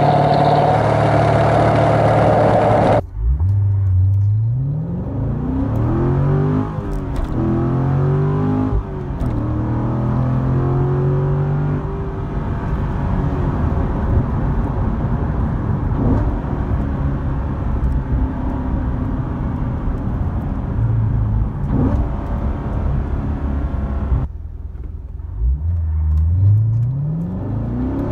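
C7 Corvette Stingray Z51's 6.2-litre LT1 V8 accelerating hard. For the first three seconds it is heard at the tailpipes with the AWE off-road X-pipe fitted, the secondary cats removed. Then, heard from inside the cabin on the stock exhaust, the engine pitch climbs through the gears, dropping back at each shift, and about four seconds before the end the same in-cabin run starts again with the AWE X-pipe.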